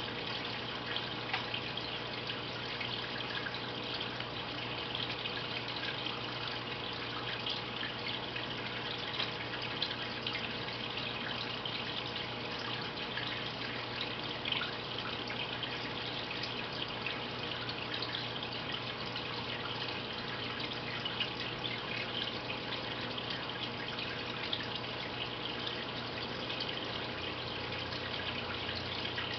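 Aquarium filter water trickling and splashing steadily into the tank, with fine dripping crackles and a steady low hum underneath.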